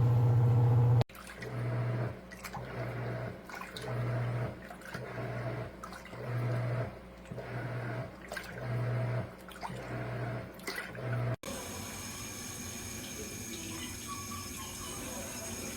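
Giantex portable washing machine running with water splashing. Its motor hum is steady for about a second, then cuts in and out roughly once a second for about ten seconds, and gives way abruptly to a steady hiss near the end.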